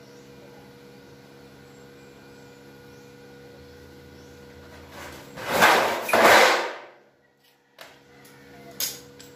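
A corrugated metal roofing sheet dragged and slid over a concrete floor and onto another sheet. There are two loud scraping rushes about five and a half seconds in, followed by a couple of light knocks near the end.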